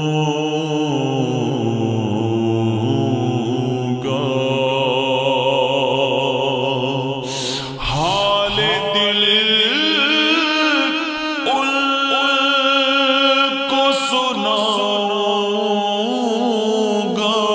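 Naat singing: sustained, wavering chanted notes over a low hummed vocal drone. About eight seconds in, the low drone stops and the voices continue higher.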